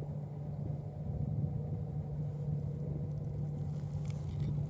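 A steady low hum with a low rumble under it, with a few faint scratchy sounds near the end.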